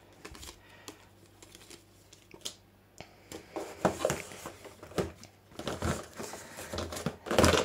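Packaging being handled and unwrapped: crinkling and rustling with scattered light knocks. The sounds are sparse at first, busier in the second half, and loudest just before the end.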